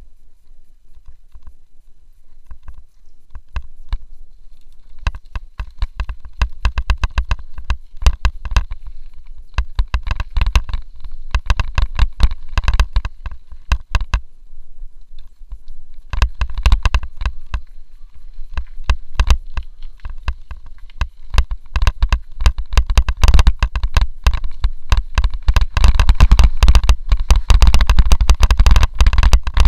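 Mountain bike riding fast downhill over gravel and dirt trail: the tyres crunch and the bike and camera mount rattle over every bump, over a low wind rumble on the microphone. A thin high tone runs through much of the ride. The clatter grows louder and rougher over the last few seconds.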